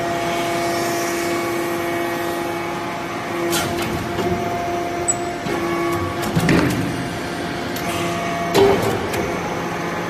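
Vertical hydraulic briquetting press running: a steady hum from its hydraulic power unit, broken by a few sharp knocks and clanks as the press cycles, the loudest about two-thirds of the way through.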